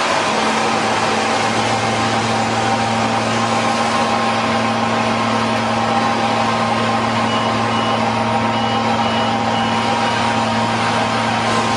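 Steady drone of a combine harvester and tractor running while the combine's unloading auger pours shelled corn into a grain cart alongside. A run of faint short high beeps sounds between about seven and ten seconds in.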